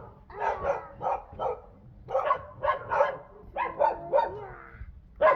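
Dog barking over and over in short, high-pitched barks, about two to three a second.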